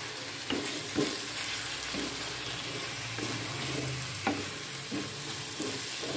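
Raw shrimp and spice paste sizzling in hot oil in a wok, stirred with a spatula that scrapes and knocks against the pan every second or so over a steady hiss.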